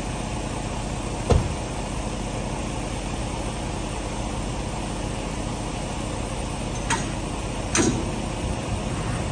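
A semi truck's diesel engine idling steadily, with a low thump about a second in. Near the end come two sharp metallic clanks as the trailer's landing-gear crank handle is taken up.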